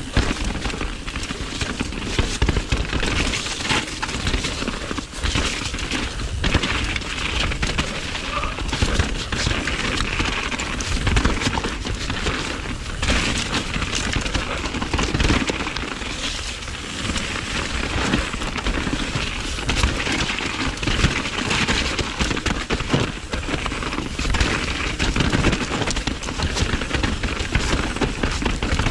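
Downhill mountain bike running fast down rough singletrack: a continuous, dense clatter of knocks and rattles from tyres, chain and frame over roots and rocks, over a steady rushing noise.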